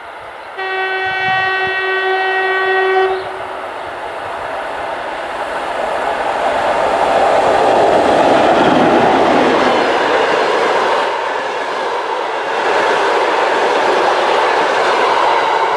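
A TEP70 passenger diesel locomotive sounds one long, steady horn blast starting about half a second in and lasting about two and a half seconds. It then passes close by with its diesel engine and wheels, loudest near the middle. Its coaches follow, rolling by with clickety-clack over the rail joints.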